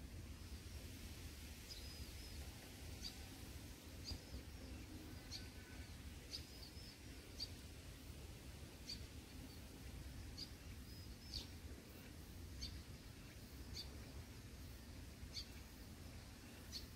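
A small bird chirping: short, high chirps about once a second, some drawn out into a brief level note, over a faint low outdoor rumble.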